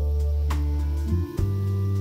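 Background music: plucked notes over held low bass notes, the bass shifting about a second in.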